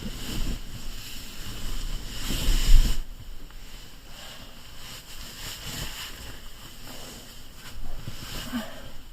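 Wind buffeting the microphone in gusts, with a deep rumble under a hiss, loudest about two to three seconds in and easing after.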